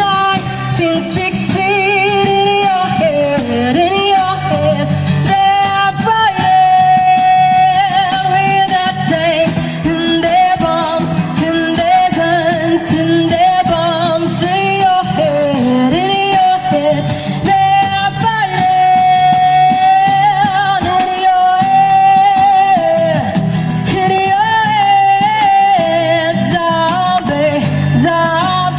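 Singing into a Riworal KSM2 wireless microphone as a sound test: a voice holding long notes with vibrato over instrumental backing.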